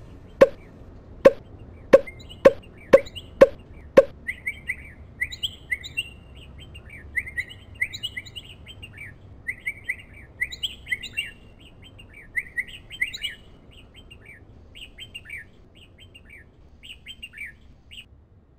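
About seven sharp knocks over the first four seconds. Then a red-whiskered bulbul chirps in quick short phrases, thinning out near the end.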